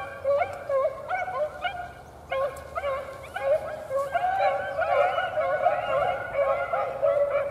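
A pack of beagles baying on a rabbit's scent trail in a steady chorus of overlapping, rising-and-falling calls, the sound of the dogs running a rabbit.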